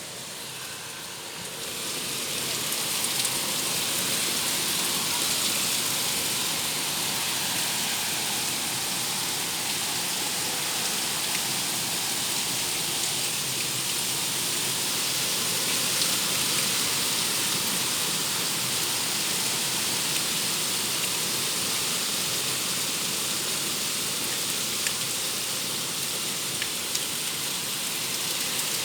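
Rain falling steadily: a dense, even hiss with scattered faint drop ticks, swelling about two seconds in and then holding steady.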